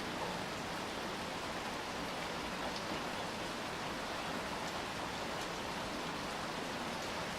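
Steady rain falling and pattering on surfaces, an even hiss with a few faint separate drips.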